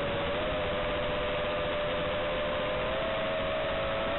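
FPV quadcopter's motors and propellers whining steadily in flight, heard under the heavy hiss of an analog video-link audio channel; the whine rises slightly in pitch about three seconds in.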